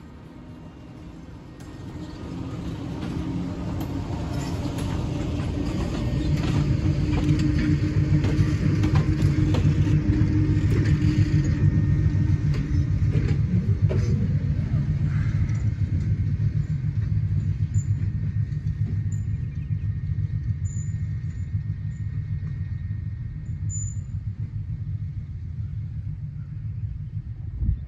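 Small diesel switcher locomotive's engine running as it moves past close by with a low rumble. The rumble grows louder over the first several seconds, then holds steady.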